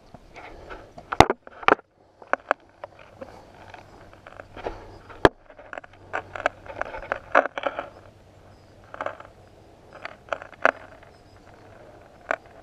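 Walking stick knocking and scraping on rock as it is moved about, heard through the GoPro mounted on top of it: irregular sharp knocks with short scuffing sounds between them.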